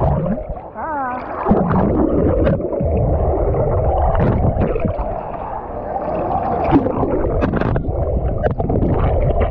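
River water heard from underwater: a dense, muffled rush with bubbles gurgling and scattered clicks and knocks, the higher sounds dulled away.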